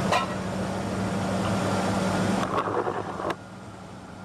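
Ford 4.0-litre V6 running steadily at idle in a 1983 Ford Ranger, with a few sharp clicks and knocks. The engine gets quieter from a little past the middle.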